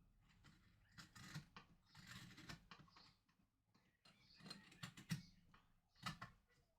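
A knife scraping and cutting at a small, hard piece, in short irregular strokes with clicks, faint.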